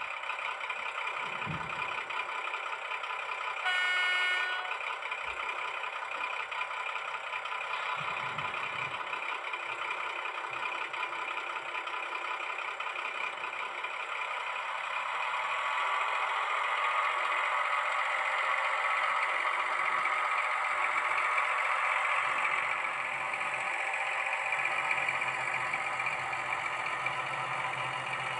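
Sound module of an H0 model DR class 106 diesel shunting locomotive playing diesel engine sound through its small onboard speaker, with a short horn toot about four seconds in. The engine sound grows louder from about halfway as the locomotive pulls away.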